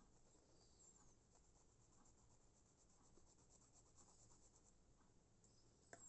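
Faint, rapid, even strokes of a small hand file scraping on a model locomotive buffer. A single sharp click comes near the end.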